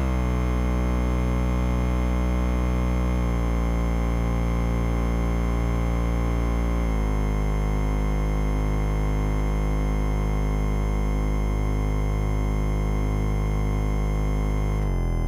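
Experimental electronic music: a dense, sustained analog-synthesizer drone chord. It moves to a new chord about three seconds in, again about seven seconds in and near the end, each time sliding briefly downward into the new pitch. A low throbbing bass runs under it from about seven seconds in.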